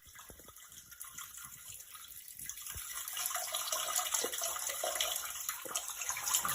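Peeing sound effect: a stream of liquid splashing into water, starting faint and growing steadily louder.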